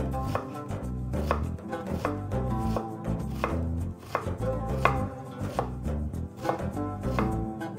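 Chef's knife chopping and dicing red onion on a wooden cutting board: a steady run of knife strikes against the board, about two a second.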